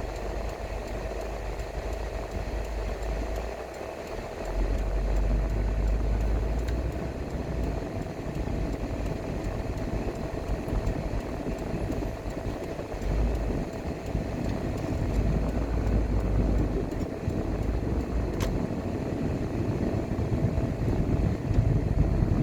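A car driving along a road: steady engine and tyre noise, with a low rumble that swells and fades several times and a faint steady hum.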